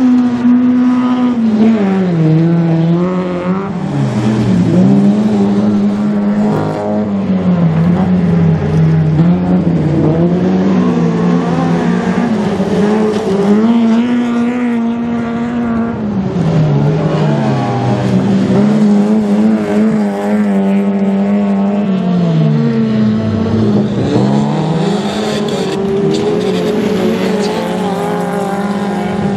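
Autocross race cars' engines revving hard on a dirt track. The engine note climbs and drops again and again, with several deep dips before it rises again.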